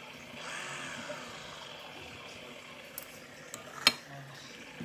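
Spoon and fork clinking and scraping against a bowl while eating, with a few sharp clinks near the end, the loudest about four seconds in.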